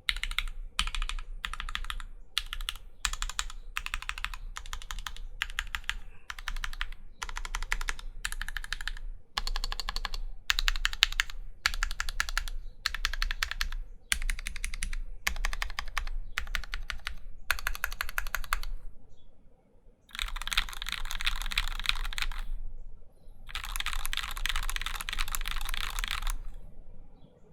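Typing on an acrylic-cased Alice-layout mechanical keyboard with Krytox 205g0-lubed Gateron Black Ink linear switches, acrylic plate and GMK keycaps. The keystrokes come in short word-length runs with brief gaps. After a pause of about a second, two longer unbroken stretches of fast keystrokes follow near the end.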